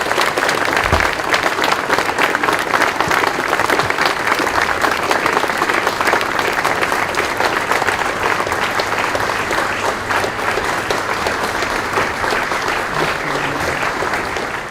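Sustained applause from a large seated audience, many hands clapping steadily, easing off a little near the end.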